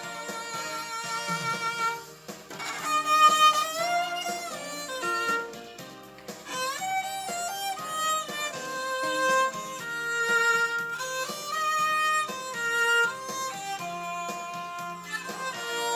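Violin played with a mute, a slow lyrical melody with vibrato and pitch slides, over a backing accompaniment.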